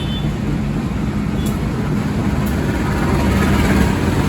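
Train running through the station: a steady rumble with a low hum, growing slightly louder toward the end.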